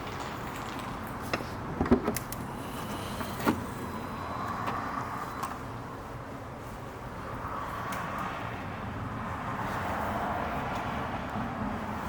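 A car's steady running noise, with a few sharp clicks and knocks in the first few seconds and a whirring that swells and fades later.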